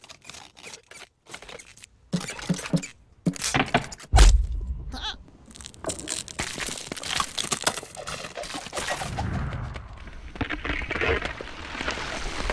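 Cartoon sound effects of a squirrel forcing an acorn into ice: squeaks and grunts, a heavy thud about four seconds in, then ice cracking and splintering. Near the end a rushing noise of snowboard and wind takes over.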